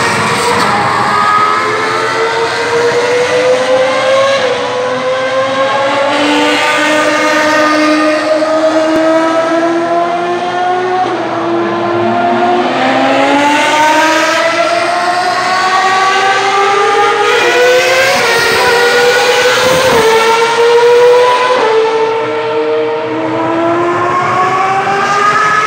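Ferrari race car engines at high revs, the pitch climbing and dropping back again and again as they accelerate through quick upshifts down the straight.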